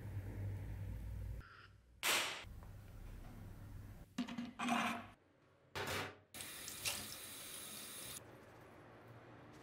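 Three short, loud noisy sounds a couple of seconds apart as a glass jar of rust remover is handled and the rusty bayonet is lifted out with pliers. About seven seconds in, tap water runs into a stainless steel sink over the bayonet.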